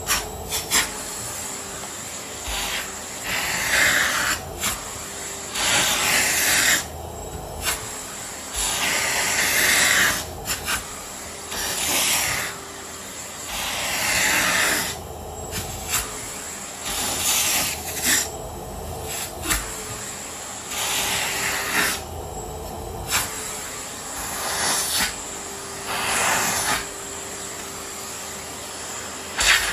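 Miele vacuum cleaner running, with a faint steady motor tone under a hissing rush of air that rises and falls every two to three seconds as the nozzle is pushed back and forth.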